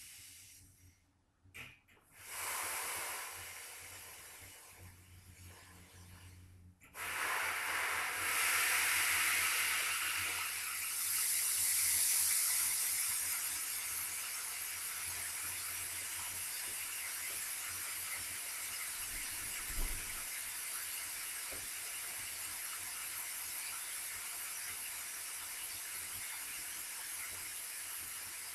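Pressurised Freon refrigerant hissing out of an opened copper line on a window air conditioner. A shorter hiss about two seconds in fades away, then a loud, steady hiss starts suddenly about seven seconds in and eases slightly, with a single dull knock partway through.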